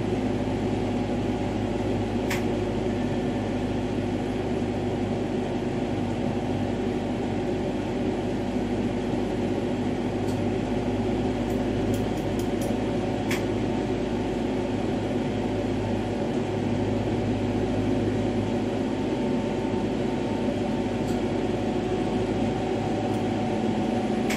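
Steady hum and rushing of a glass lampworking bench torch burning and the studio's ventilation running, with a few faint clicks from the glass work.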